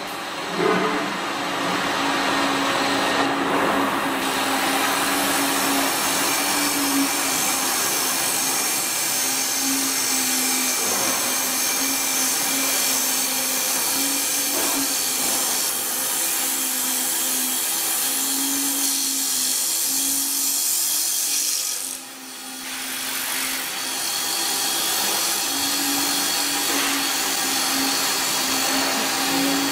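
Automatic wood lathe cutting a spinning wooden spindle: a steady hiss of cutting over a constant motor hum, easing off briefly about two-thirds of the way through.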